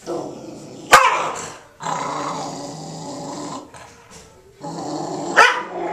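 Dog growling in three long, low rumbles while a fake hand is pushed into its food bowl: it is guarding its food. Two sharp knocks, about a second in and near the end, are louder than the growling.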